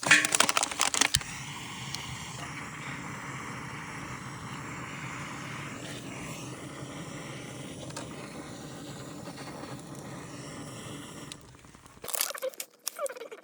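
Zippo mini butane torch burning with a steady hiss as it lights tinder shreds. It starts with a burst of clicking and rustling and cuts off abruptly near the end, followed by crackling and rustling.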